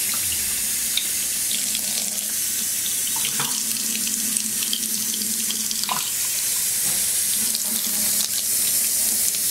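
Kitchen tap running steadily, its stream splashing into a stainless steel sink.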